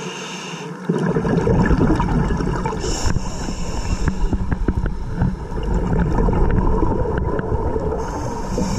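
Underwater noise heard through an action camera's waterproof housing on a scuba dive. A muffled rushing rumble grows louder about a second in as the camera is swung around, with scattered small clicks and knocks.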